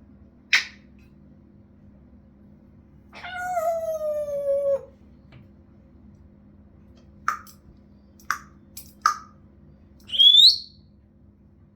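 Congo African grey parrot calling: a short sharp call, then a long drawn-out call that falls in pitch, three short clipped calls, and finally a loud rising whistle.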